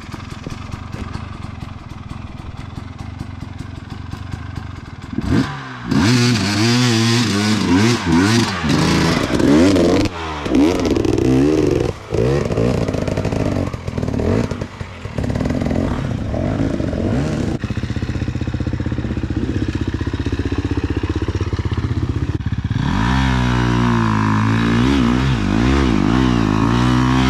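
Dirt bike engine running low and steady, then revved hard about five seconds in, its pitch rising and falling again and again with the throttle, with a couple of brief drops and another rise near the end.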